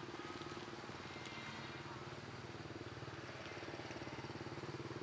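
An engine running steadily at idle: a low, even drone that does not rise or fall.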